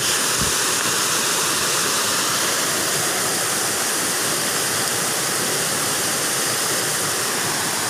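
River water spilling over a small weir, a steady, even rushing that does not change.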